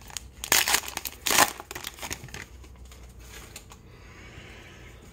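Foil wrapper of a baseball card pack being torn open and crinkled, loudest in the first second and a half, then dying down to a few light rustles.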